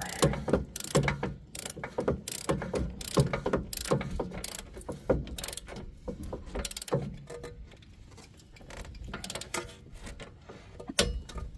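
Click-type torque wrench ratcheting on a rear wheel-hub mounting bolt, a run of sharp clicks about two or three a second that thins out in the middle and picks up again: the bolt being brought up to its set torque of about 120 foot-pounds.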